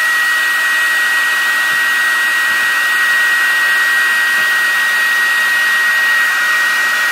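Small handheld hair dryer running steadily: a high, even motor whine over the rush of blowing air.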